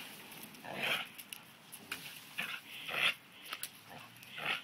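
Border collie vocalising in three short bursts, about one, three and four and a half seconds in, as she attacks the low-hanging branches of a tree.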